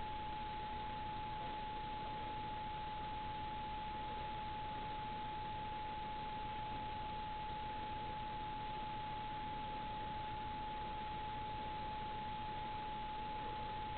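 A steady single high tone that doesn't waver, over a faint hiss.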